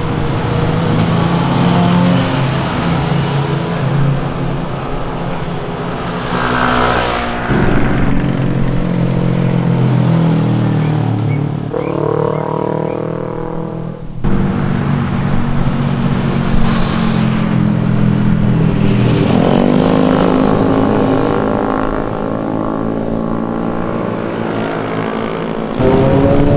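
Sport motorcycle engines passing one after another, the engine note rising in pitch as a bike accelerates away, twice. The sound changes abruptly twice, about halfway through and near the end.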